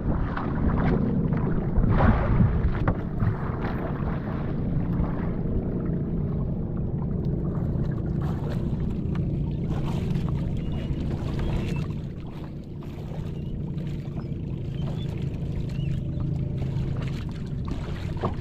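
Motorized bangka (Philippine outrigger boat) engine running steadily, with a few short knocks over it.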